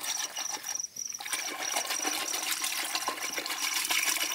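Curd being churned by hand with a wooden churning stick in a steel pot: the thick, frothy curd sloshes and splashes as the stick is twirled, churning it to separate butter for ghee. The sound briefly drops out about a second in, and a steady pulsing high chirp runs behind it.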